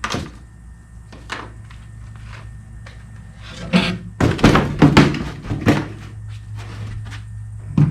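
Workshop knocks and thunks while screws are taken out of the mounts holding a fibreglass tank cradle to sawhorses: a few sharp knocks, then a louder cluster of thunks and clatter about four to six seconds in, over a steady low hum.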